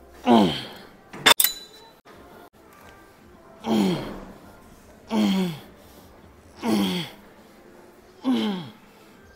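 A man grunting as he breathes out through a weight-training set, each grunt falling in pitch, about every second and a half. A sharp clink about a second in.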